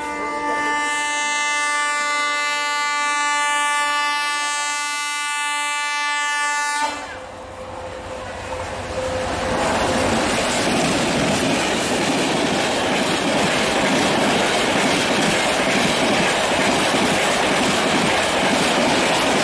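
A WDM-3 class diesel locomotive's horn sounds one long blast of several steady tones for about seven seconds, then cuts off suddenly. After that come the rushing rumble and wheel clatter of the train passing at speed, building up and holding.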